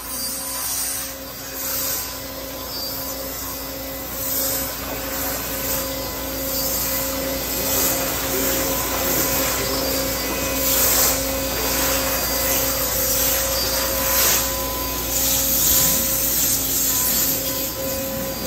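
Flow IFB CNC waterjet cutting a metal plate: the high-pressure jet makes a loud, steady hiss that surges louder every few seconds, over a steady low hum.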